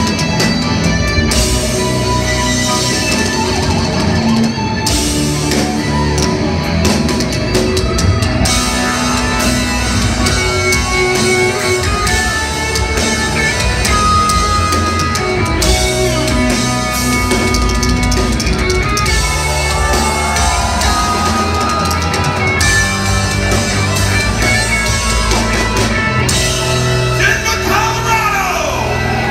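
Progressive metal band playing live at full volume: drum kit, bass, electric guitar and keyboards, heard from within the audience.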